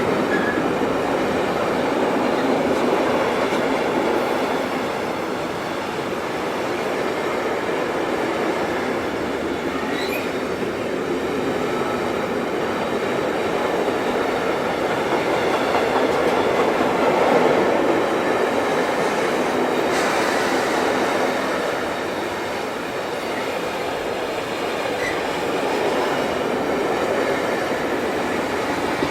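A train rolling past, a continuous noise of wheels on rails that swells slightly about two-thirds of the way through.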